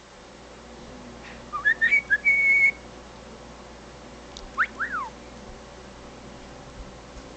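Pet budgerigar whistling: a short run of rising notes ending in a held, slightly wavering note about two seconds in, then a couple of quick up-and-down glides near the middle.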